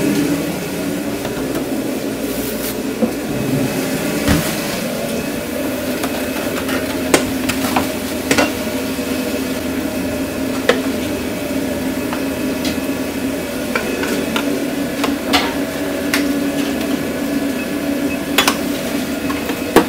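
Shrimp and scallops being cooked in a pan, with a metal utensil clacking against the pan at uneven moments every second or two, over a steady mechanical hum.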